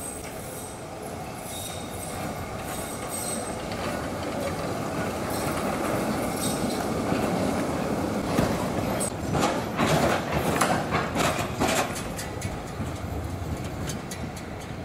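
An E1 tram passing, growing louder to a peak about two-thirds of the way through. A thin high wheel squeal sounds in the first few seconds, and a quick run of clacks comes as the wheels cross the track joints.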